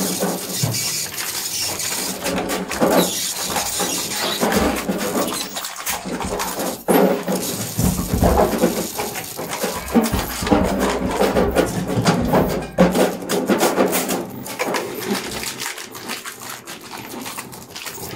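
Live experimental improvised music: a dense, irregular texture of noisy sounds and many clicks and knocks, swelling and thinning with no steady beat.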